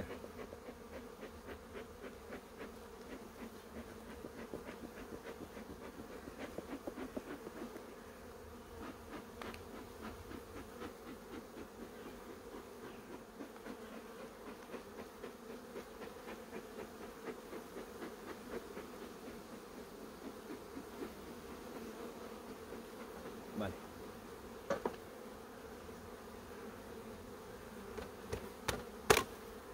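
Dense, steady buzzing of a very populous honeybee colony around an open hive, with a few sharp knocks near the end.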